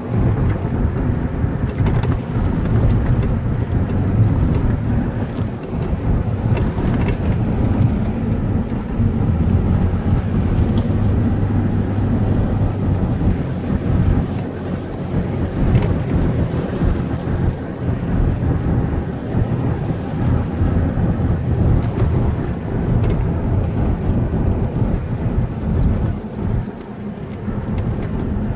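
A car driving on asphalt, heard from inside the cabin: a loud, steady low rumble of tyres and engine, with a few faint ticks.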